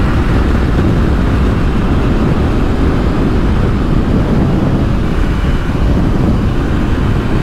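Steady, loud rush of wind and road noise on a helmet-mounted action camera's microphone while riding a motorcycle at highway speed.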